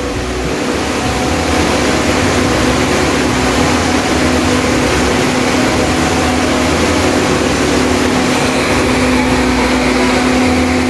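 Small educational wind tunnel's electric fan running, its motor driven by a variable-frequency inverter: a loud, steady rush of air with a steady hum. A fainter higher whine joins in near the end.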